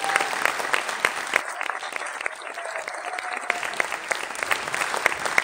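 Audience applauding, with many single sharp claps standing out.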